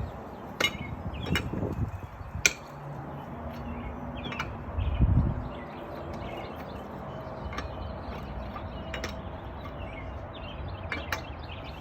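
Lug nuts being broken loose by hand with a truck's factory lug wrench: scattered sharp metallic clicks and clanks of the wrench on the nuts, about seven spread through, with a couple of short low thuds.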